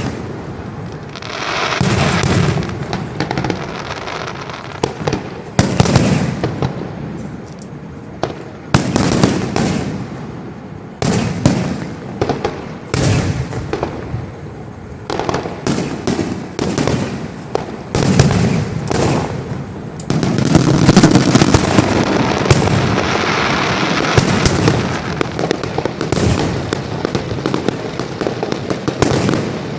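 Aerial fireworks display: repeated sharp bangs and booms with crackling between them, building into a dense, continuous volley about twenty seconds in.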